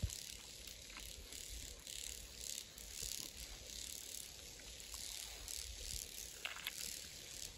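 Faint outdoor ambience: a steady high hiss that swells and fades a little, with a couple of soft clicks.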